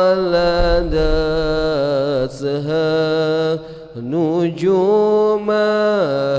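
Several men chanting an Arabic sholawat together into microphones, with long held notes and wavering ornaments. The chant dips briefly about four seconds in, then resumes.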